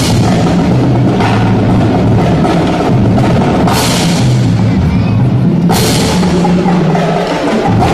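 Marching drumline playing: snare drums and tuned bass drums beating out a pattern, with three cymbal crashes, at the start, about four seconds in and about six seconds in.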